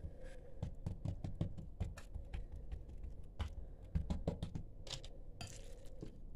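Fingertips tapping and patting thin oiled dough flat against a hard work surface in quick, irregular taps, with a short scrape about five and a half seconds in.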